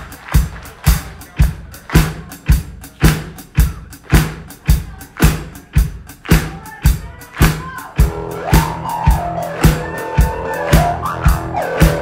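Live rock band with a drum kit playing a steady beat of about two hits a second. The electric bass and guitar join in about eight seconds in.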